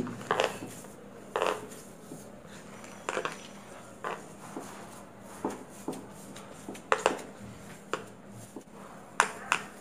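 Hand kneading fresh chhana curd on a plastic tray: irregular short taps and knocks of the palm and fingers against the plastic, roughly one a second.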